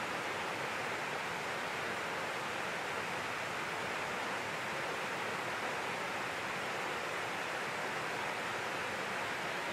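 Steady rushing of water spilling down a concrete dam face and churning over the shallow river current below it, an even noise with no breaks.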